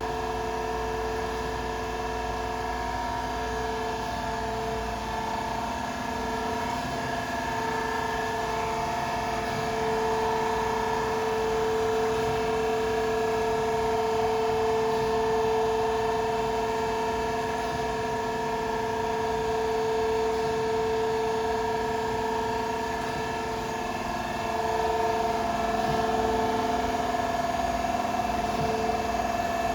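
ELB hydraulic surface grinder running: a steady machine hum with several steady whining tones, some of which swell and fade slightly over the seconds.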